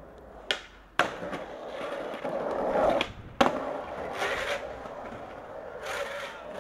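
Skateboard ollie on asphalt: a sharp tail pop about half a second in, the landing about half a second later, then the wheels rolling and growing louder. After a cut, another sharp clack of the board hitting the ground is followed by more wheel rolling.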